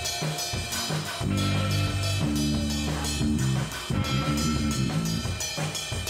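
Instrumental music with a drum kit keeping a steady beat over low bass notes.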